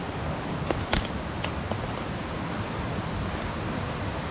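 Steady rushing of creek water, with a few light clicks in the first second and a half.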